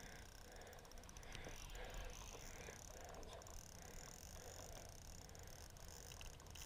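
Near silence: faint outdoor background hiss with a few soft ticks.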